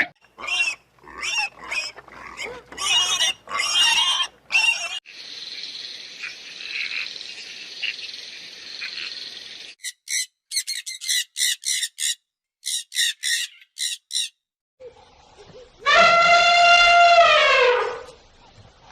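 A run of different animal calls, one clip after another: quick bursts of calls, a steady hissing stretch, a series of short pitched calls, and near the end one long call of about two seconds that falls in pitch as it ends.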